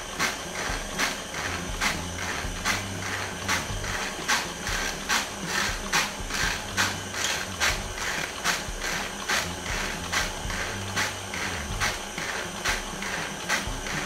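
KitchenAid stand mixer running with its motor-driven sifter attachment turning: a steady motor hum and whine under a regular clicking from the sifter's mechanism, two or three clicks a second, as dry ingredients are sifted into the batter.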